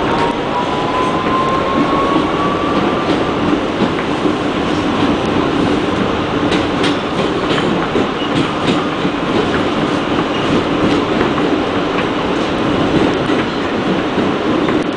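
NYC Subway R160B car running at speed through a tunnel: a steady, loud rumble of wheels on rail, with a thin motor whine rising in pitch over the first three seconds as the train accelerates. Scattered sharp clicks of the wheels over rail joints, most of them around the middle.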